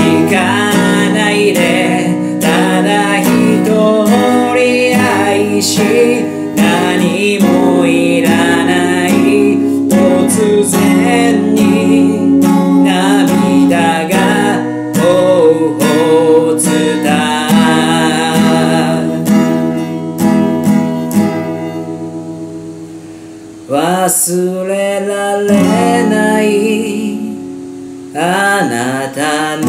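A man singing in Japanese while strumming an acoustic guitar. About three quarters of the way through, the voice pauses for a couple of seconds and the guitar rings on softly before both come back in.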